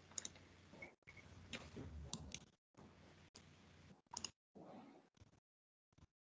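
Near silence on a video call: faint background hiss from an open microphone that cuts in and out abruptly, with a few faint clicks.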